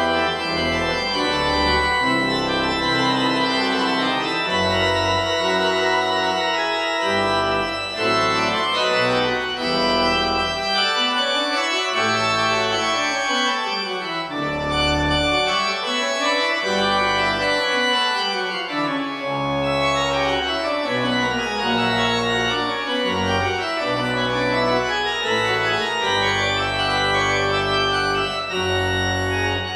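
Church organ playing a loud, full-textured passage: sustained chords over a bass line that moves every second or so, with runs of notes rising and falling against each other in the middle of the passage.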